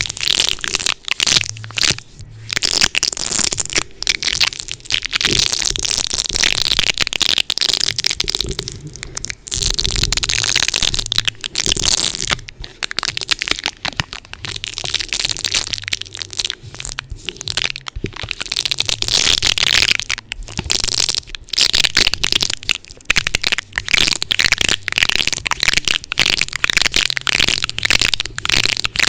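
Adhesive tape stuck over a microphone being worked fast and hard, right on the capsule. It makes a dense, loud crackling full of sharp clicks and pops that stops for a moment every second or two.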